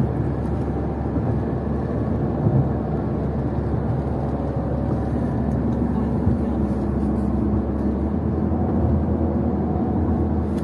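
Steady engine and road noise heard inside the cabin of a moving car.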